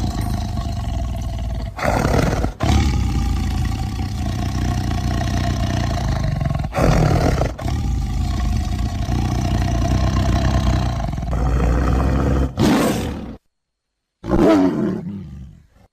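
Big-cat growling and roaring, the Dinofelis creature sound effect built from leopard and tiger recordings. A long, low growl swells into louder roars about two, seven and twelve seconds in, then stops briefly before a final roar that falls in pitch and fades.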